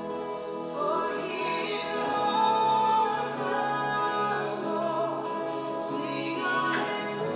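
A worship song: singing voices over sustained instrumental chords.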